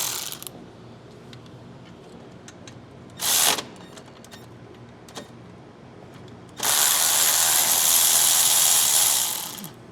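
Cordless power tool run in two bursts while taking the engine apart: a short one about three seconds in and a longer one of nearly three seconds near the end, spinning out a fastener.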